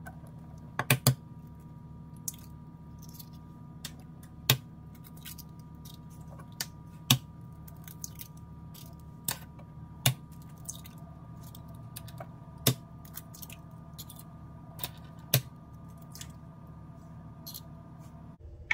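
Eggs being cracked one at a time into a metal muffin pan: a quick cluster of sharp shell taps near the start, then a single sharp tap about every two and a half to three seconds. A steady low hum runs underneath.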